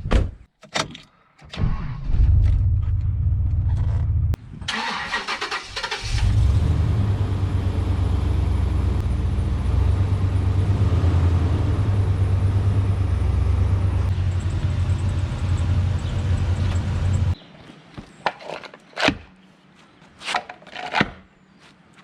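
Chevrolet Suburban engine being started: a short burst of cranking, then the engine runs steadily for about eleven seconds and cuts off suddenly. A few sharp clicks and knocks follow.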